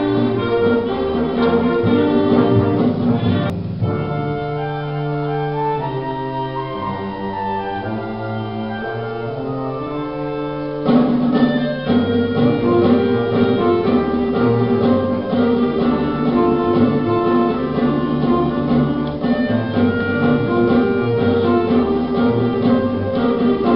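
School wind band playing a concert piece. A few seconds in, the full band drops to a softer passage of held chords, then comes back in loudly about eleven seconds in and plays on.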